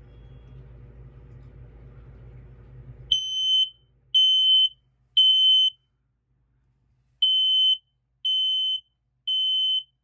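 Kidde P9050 smoke alarm going into alarm about three seconds in, set off by test smoke spray. Its high-pitched beep sounds in the temporal-three pattern: three loud beeps, a pause, then three more. Before it starts there is only a faint low hum.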